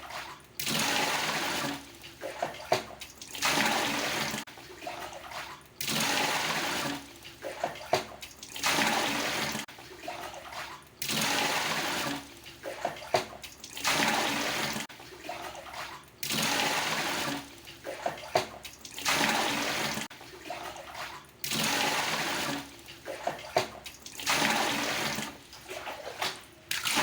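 Water scooped with a dipper from a traditional Indonesian bathroom water tub and poured out again and again: about ten pours, one every two to three seconds, each a second or so of splashing, with small knocks and sloshes of the dipper in between.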